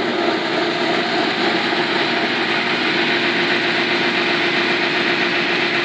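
AristoCraft G-scale model Union Pacific U25B locomotive, powered up on its track, giving off a steady, unbroken engine-like drone.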